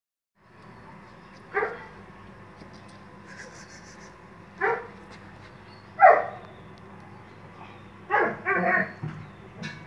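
Indian Spitz puppies giving short yips: single yips a few seconds apart, then a quick run of several near the end, over a steady low hum.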